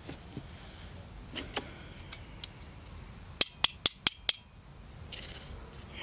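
Metal forks clinking against a ceramic plate: a few scattered clicks, then a quick run of about six sharp clinks in the middle.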